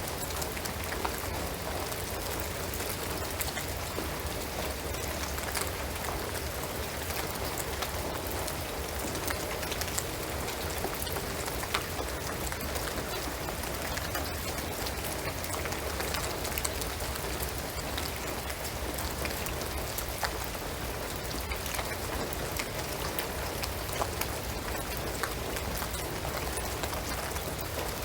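Steady rain falling on a shingled roof and pine trees, an even hiss dotted with scattered sharp ticks of individual drops.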